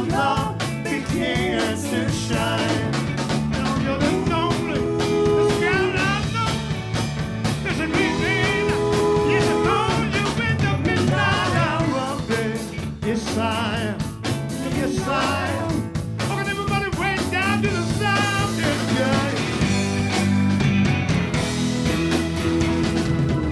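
Live R&B band playing an instrumental passage: a harmonica solo with bending, wavering notes over drums, bass, electric guitar and keyboards.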